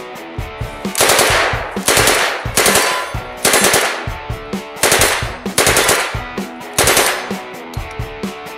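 Submachine gun firing on full auto in about seven short bursts, each well under a second, over background music.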